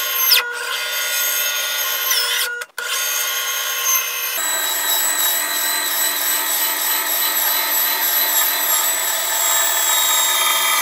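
Benchtop band saw running as its blade cuts through a thick leather boot and its sole, a steady high whine. The footage is fast-forwarded, with a brief dropout near three seconds and a change in pitch a little after four.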